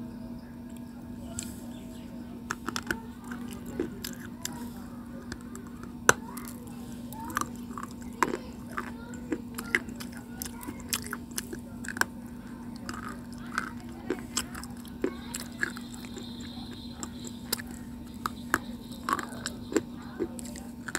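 Close-up chewing of white slate stone: sharp, irregular crunches and clicks as the chalky pieces are ground between the teeth, over a steady low hum.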